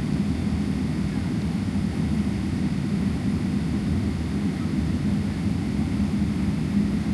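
Cabin noise of a Boeing 777-300ER with its GE90 jet engines running: a steady low rumble with an even hum and no change in level.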